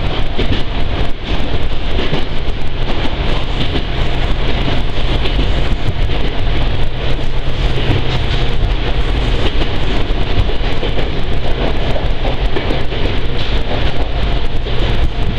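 Ohmi Railway electric train running, heard inside the passenger car: a steady rumble of wheels and motors with a low hum and a few faint clicks.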